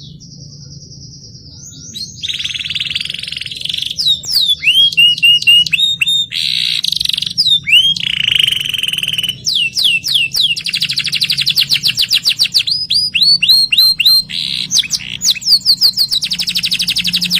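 Domestic canary singing: a held high whistled note, then loud fast rolling trills alternating with runs of quick falling notes.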